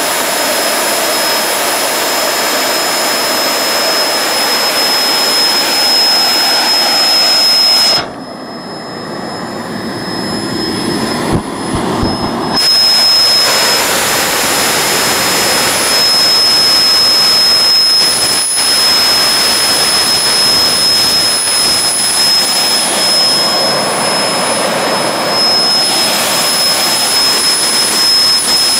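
Home-built 200-pound-thrust gas turbine jet engine running on a test stand, with its compressor exducer tip clearance opened up to raise mass flow: a loud steady rush of jet noise with a steady high turbine whine. About eight seconds in the sound drops and dulls for a few seconds, then comes back at full strength.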